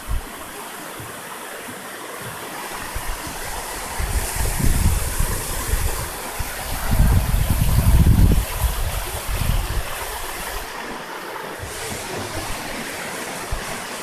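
Mountain stream rushing over rocks in a gorge, a steady rush of water. Low rumbling on the microphone comes in twice, about four seconds in and again around seven to eight seconds.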